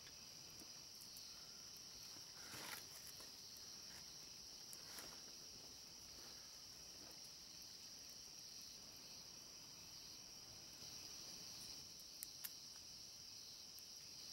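Faint, steady, high-pitched chorus of crickets at night, with a few soft clicks.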